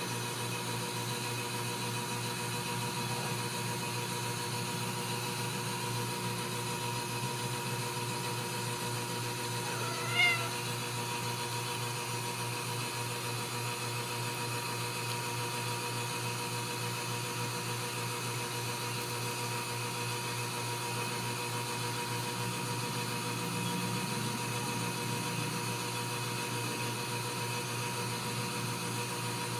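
Ragdoll kitten giving one short, high mew about ten seconds in, over a steady low hum.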